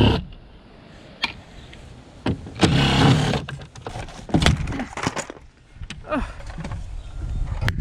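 Knocks and clatter of an air-conditioning unit's casing being handled and opened up for scrap, with a short scraping rush about three seconds in.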